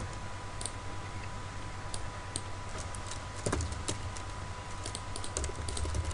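Computer keyboard typing: scattered keystrokes that quicken into a rapid run near the end, over a faint steady hum.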